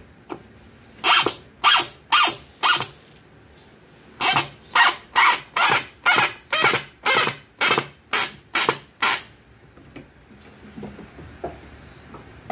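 Cordless Makita driver driving screws into a wooden frame joint in short trigger bursts: four pulses about a second in, a pause, then about eleven quicker pulses, roughly two a second, that stop near the end.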